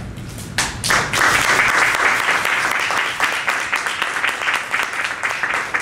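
Audience applauding a speaker as he is welcomed to the lectern. The clapping starts about half a second in and is loudest early on.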